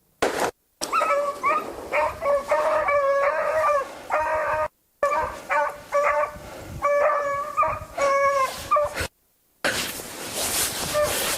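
Hunting beagles baying on a rabbit's trail: a string of drawn-out, pitched howling barks, one after another, with the sound dropping out briefly a few times.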